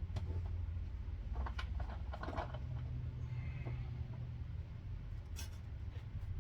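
Scattered small clicks and rattles of handling under the car, with a denser cluster about one and a half to two and a half seconds in and one sharp click near the end, over a steady low hum.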